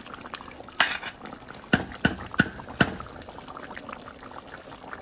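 A spoon knocking against a cooking pot about five times in the first three seconds while curry chicken wings in gravy are stirred, over the low sound of the pot simmering.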